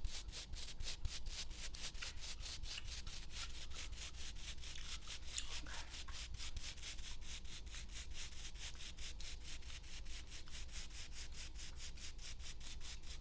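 A nail being filed back and forth in quick, even strokes, about five a second.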